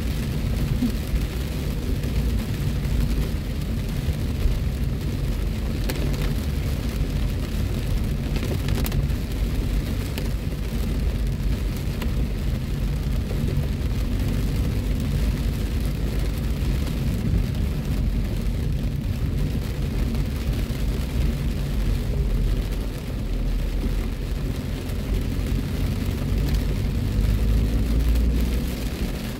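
Heavy rain falling on a moving car's roof and windshield, heard from inside the cabin over the steady low rumble of the car on the wet road.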